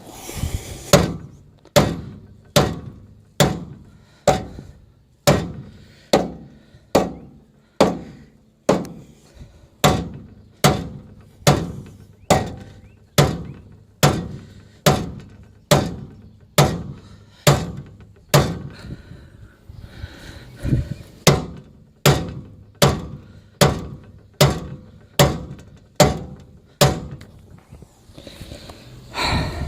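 Hammer blows on a rust-frozen steel trailer hitch ball mount seized in the truck's receiver tube, struck at a steady pace of a little more than one blow a second, each hit ringing briefly. The mount is starting to shift under the blows.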